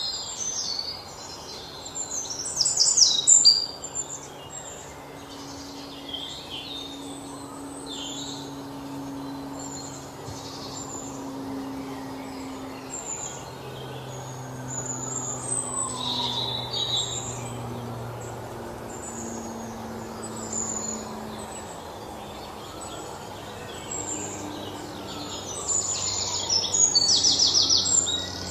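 Many birds chirping and twittering, with quick loud trills about three seconds in and again near the end, over a low hum that shifts pitch every few seconds.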